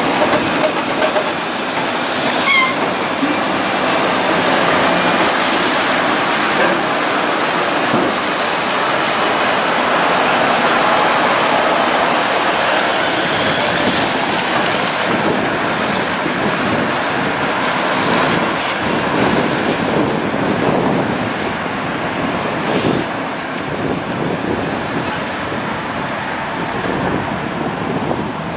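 Mack prime movers hauling mining trucks on multi-axle floats passing by: a steady rush of heavy diesel engines and tyre noise. The rush grows duller and a little quieter over the last several seconds.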